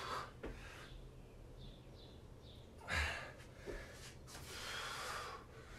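A man breathing hard from exertion, with two forceful breaths: a sharp one with a soft thud about three seconds in, and a longer exhale about a second later.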